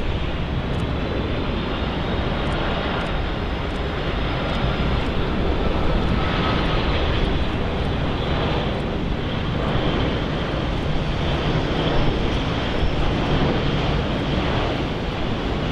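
Jet airliner engines, a steady rushing roar with a faint whine, swelling slightly through the middle as the aircraft passes.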